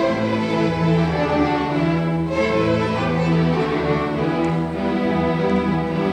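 A string orchestra of violins, cellos and basses playing sustained bowed notes together, the chords shifting every second or two, with a full new entry at the start after a brief pause.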